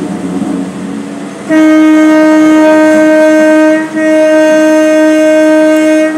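A train horn sounds two long, loud blasts on one steady tone, starting about a second and a half in, with a brief break between them. Before the horn, the moving train runs quietly underneath.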